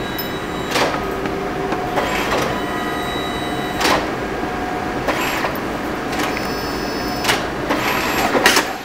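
DNP DS620 dye-sublimation photo printer inside a photo booth running through a print job: a steady mechanical whir with several sharp clicks along the way.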